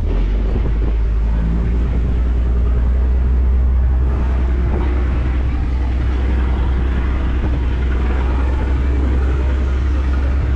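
A vehicle engine running with a steady low rumble, with wind rushing on the microphone over it.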